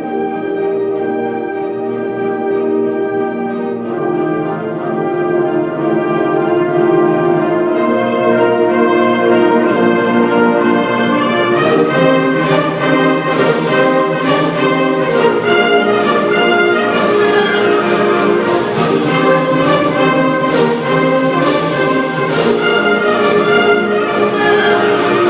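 Orchestral music led by brass instruments, loud and sustained. From about halfway through, repeated sharp percussion strikes join in, coming in quick clusters near the end.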